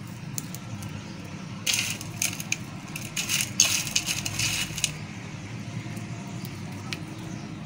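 Pieces of hard homemade butterscotch crunch crackling and clinking as they are broken up and scattered by hand, a dense run of small sharp clicks for about three seconds in the middle.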